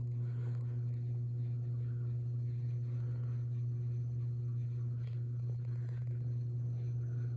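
30-inch Harbor Breeze Breezeway ceiling fan running at a steady speed, its motor giving a constant low hum with fainter higher overtones.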